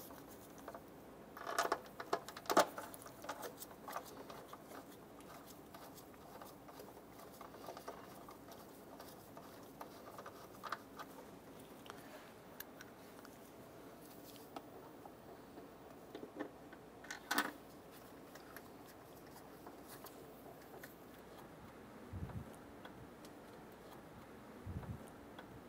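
Light metallic clicks and clinks of hand tools and bolts being worked into an engine's intake manifold, bunched in a short flurry early on and again later, with a few dull knocks near the end.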